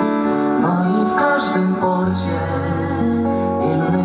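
Live music: two acoustic guitars playing a slow ballad accompaniment between sung lines, with a held low note about halfway through.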